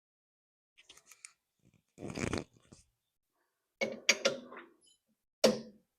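Metal handling noises at a stopped lathe as the workpiece is taken out and turned around: a scrape, a few clanks and a sharp knock with short silences between them.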